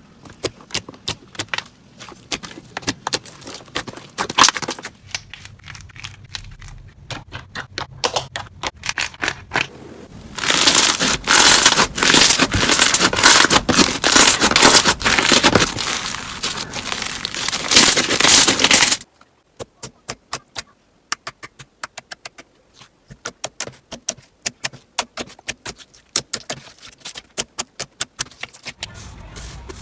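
Slime being squeezed, stretched and pressed by hand, giving rapid crackling and popping clicks. The clicks grow dense and loud, stop abruptly about two-thirds of the way through, then return as sparser pops.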